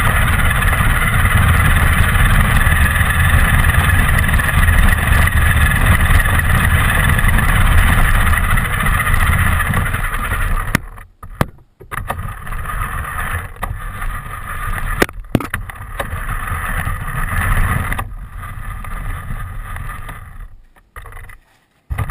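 A radio-controlled car driving: steady motor noise and a heavy rumble from the running gear. About halfway through it suddenly drops off into short stop-start bursts with brief gaps, as the car slows and moves in spurts.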